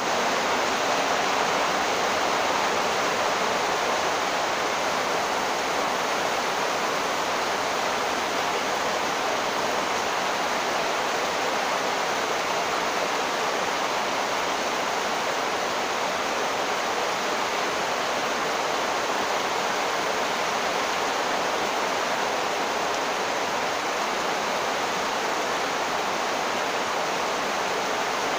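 Torrential rain falling: a loud, steady, even hiss that does not let up.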